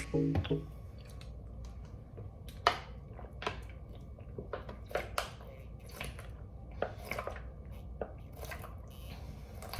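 Scattered soft clicks and taps, a few sharper than the rest, over a low steady hum.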